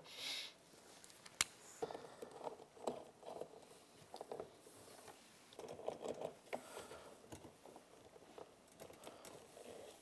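Faint handling sounds of a ratchet and wiring connectors being worked in an ATV's electrical compartment: small scattered clicks, taps and rustling, with one sharp click about a second and a half in.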